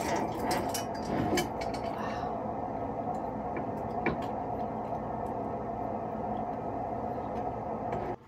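Steady room hum, with light clinks and knocks in the first two seconds and one more about four seconds in as a brass sconce hung with crystal drops is set back onto a shelf. The hum stops abruptly near the end.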